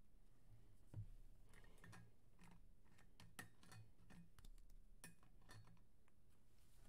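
Faint, scattered light clicks and taps of trading cards and hard plastic card holders being handled and set down on a table.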